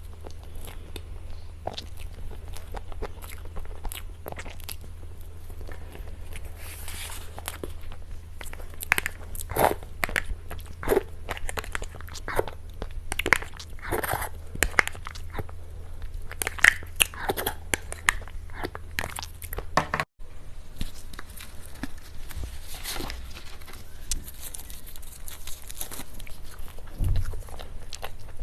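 Close-miked eating of cake, mukbang style: bites and chewing with many short crisp crunches. A steady low hum underneath stops abruptly about two-thirds through.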